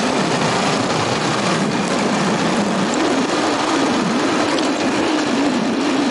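Motorbike engine running while riding, under steady wind and road noise. The engine note drifts slightly up and down.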